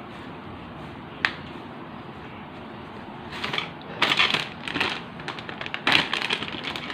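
Plastic bag of flour crinkling in repeated bursts as it is handled and shaken over the table, after a single sharp click about a second in.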